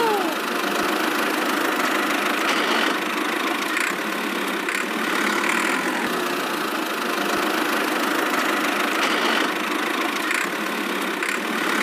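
Miniature tractor's engine running steadily as it drives along.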